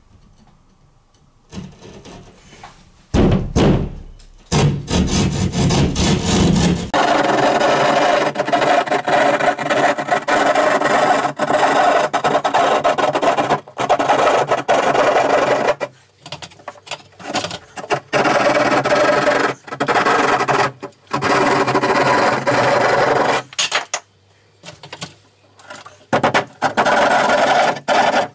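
Hand drywall saw cutting a round recessed-light hole in ceiling drywall: rapid rasping back-and-forth strokes, starting about three seconds in and stopping briefly several times as the cut goes around the circle.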